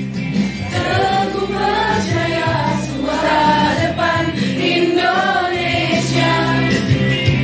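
A choir singing a song with musical accompaniment, in long held phrases.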